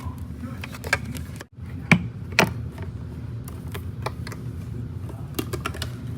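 Vacuum cleaner running with a steady hum, while debris clicks and crunches irregularly as it is picked up, the loudest clicks about two seconds in.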